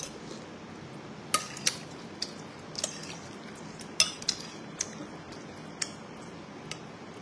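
Metal spoon and fork clinking and scraping against a glazed ceramic bowl while eating. Irregular sharp clinks, about nine in all, the loudest about a second and a half in and about halfway through.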